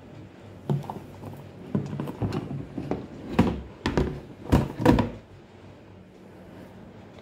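Hard plastic carrying cover of a sewing machine being lifted off the machine: a string of knocks and clacks, the loudest two thunks near the end of the handling, then quiet room tone.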